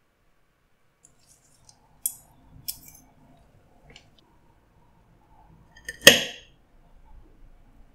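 A metal fork digging into a plate of crispy shredded fried pork carnitas, with one loud sharp clink of the fork on the ceramic plate about six seconds in. Lighter crisp ticks and two sharp clicks come earlier, about two and three seconds in.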